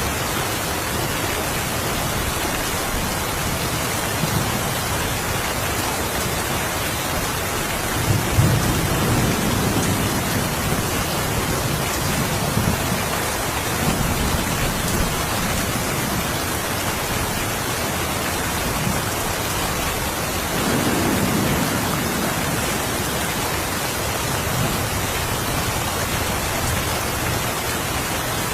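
Steady rain, with low rumbles of distant thunder swelling about a third of the way in and again past two-thirds.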